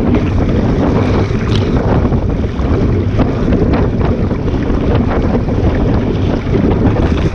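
Wind buffeting the microphone on a Sunfish sailboat under sail, over water rushing and splashing against the hull in many short splashes.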